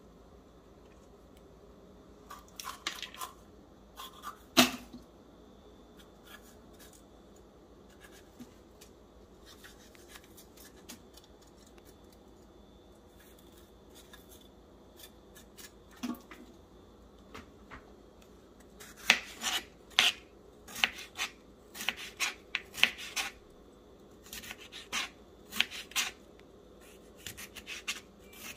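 Hand food preparation in a kitchen: scattered scrapes and small clicks, with one sharp knock about four and a half seconds in and a busier run of quick scrapes and clicks through the last ten seconds.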